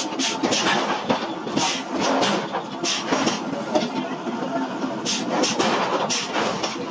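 Heavy forging machinery running steadily, with short hissing bursts at irregular moments while it grips a red-hot iron block.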